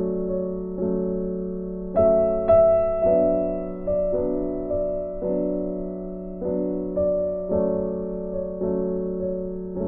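Background music: slow, soft piano chords, each struck and left to fade, with a new chord about every half second to a second.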